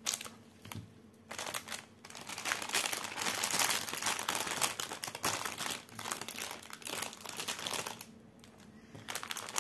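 Packaging pouch crinkling and rustling in quick, irregular crackles as it is handled and things are packed into it, quieter for a moment about a second in and again near the end.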